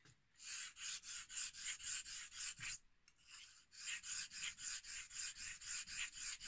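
Straight razor blade stroked rapidly back and forth on a wet 1000-grit ceramic whetstone during bevel setting, a rasping hiss at about four strokes a second. There are two runs of strokes with a short pause a little under 3 s in.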